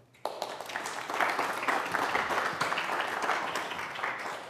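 Audience applauding, starting a moment in and easing off near the end.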